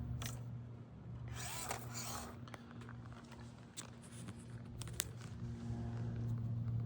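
Axial SCX24 Deadbolt RC crawler's small brushed 050 motor and gearbox whirring in short rasping bursts as it climbs, with a sharp click about five seconds in.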